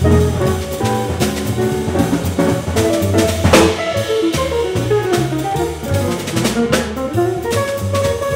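Jazz trio of guitar, double bass and drum kit playing live, with a cymbal crash about three and a half seconds in.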